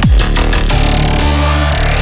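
Electronic dance music with a heavy wobbling bass and a falling bass sweep at the start, in the style of dubstep or drum and bass.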